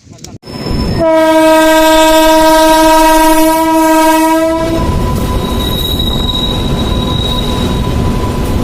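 Train horn sounding one long, steady blast of nearly four seconds, starting about a second in, followed by the loud rumble of the train running past.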